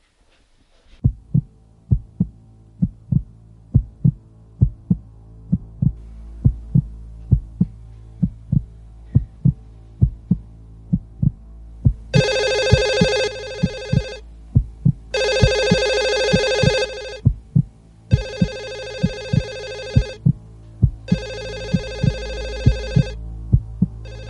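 A slow, steady heartbeat thumping in pairs over a low hum drone. About halfway through, a telephone starts ringing: four rings, each about two seconds long, which are the loudest sound.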